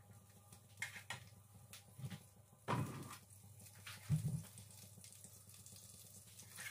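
Liquid pouring from a bottle into a pan of sauce, followed by scattered light knocks and two louder ones, about three and four seconds in, as the bottle and a wooden spoon are handled against the pan.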